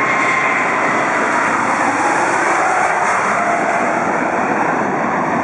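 Jet airliner engines running loud and steady, a dense rush of jet noise with a faint whine that slowly falls in pitch.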